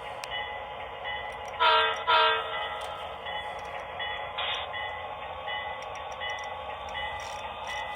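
Model train's onboard sound unit giving two short horn blasts, half a second apart, about two seconds in, over its steady running sound. The sound is thin, from a small speaker.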